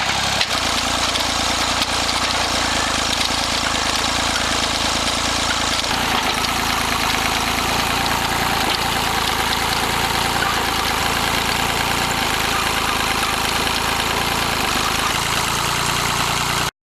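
The open source tractor's engine running steadily. The sound cuts off suddenly near the end.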